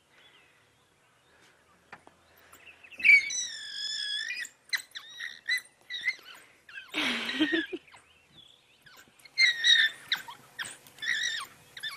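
African wild dogs squealing high-pitched in several bouts, starting about three seconds in, with a louder, rougher cry about seven seconds in. These are submissive begging calls made over food at a kill.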